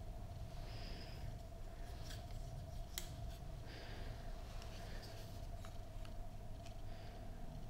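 Hands handling items during an unboxing: soft rustles and a few scattered sharp clicks, over a steady low hum.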